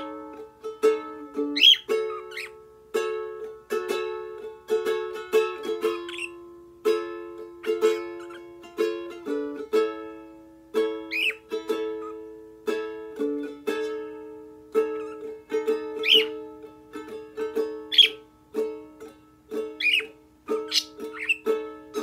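Ukulele playing a repeating plucked chord pattern, with short sharp pet-bird chirps cutting in every few seconds over it.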